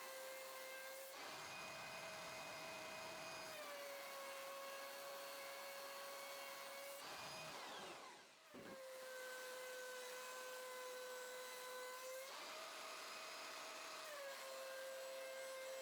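Thickness planer running with a steady whine. Twice a board passes through, adding a rough cutting noise for two or three seconds. About eight seconds in, the whine briefly sags and dips.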